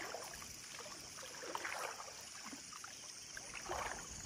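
Footsteps going through wet vegetation and into shallow river water, with water trickling and sloshing around the legs in irregular bursts.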